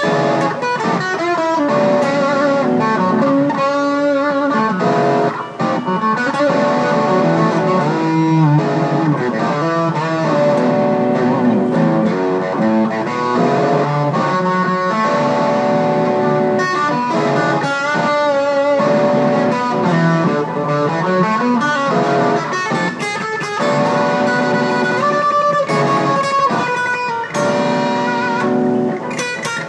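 Electric guitar playing melodic lead lines in B minor, with notes bent up a half step and held.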